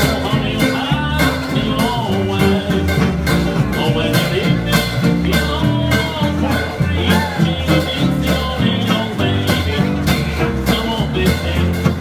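Small hot-jazz trio playing a swing tune: acoustic guitar strummed on every beat over a walking upright double bass, with a melody line on top.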